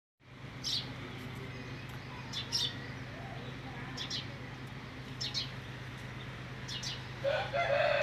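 Small birds chirp in short, scattered bursts over a steady low hum. Near the end a louder pitched call from the Aseel rooster begins.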